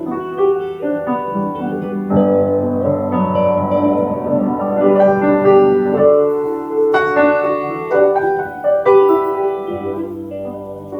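Instrumental break in a live song with no singing: piano chords and melody notes struck about once a second and left to ring.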